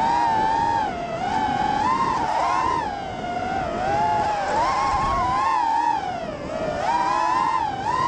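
DRL Racer 3 FPV racing drone's electric motors and propellers whining, the pitch rising and falling constantly as the throttle changes through turns and straights.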